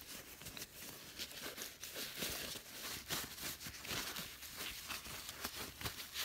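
Paper towel crinkling and rubbing over a chrome ratchet as it is wiped clean, a quiet run of irregular rustles and small ticks.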